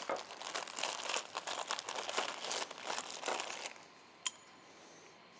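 Crinkling, rustling handling noise for about three and a half seconds, stopping suddenly, then a single sharp click a little later.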